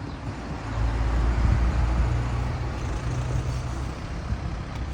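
A motor vehicle's engine rumble going by: a low hum that swells about a second in and then slowly fades.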